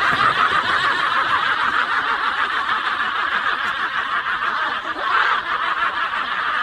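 Laughter, steady and unbroken.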